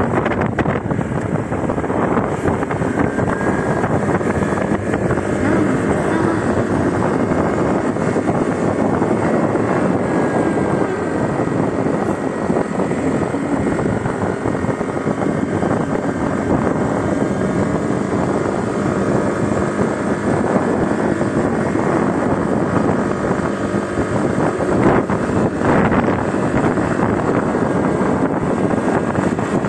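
Motor scooter being ridden at moderate road speed: a steady rush of wind over the microphone mixed with the engine running.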